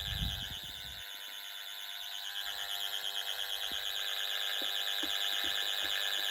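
Intruder alarm sounder on a Pyronix Paragon Super system giving a continuous high-pitched warble, slowly growing a little louder, sounding for a tamper fault. A low thud comes in the first second, and a few faint knocks follow.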